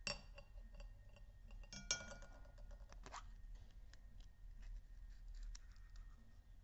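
Faint crackles and plastic clicks of a chocolate surprise egg being handled. The chocolate shell comes away from the yellow plastic toy capsule, and the capsule is then worked open by hand. A sharp click just before two seconds in is the loudest sound.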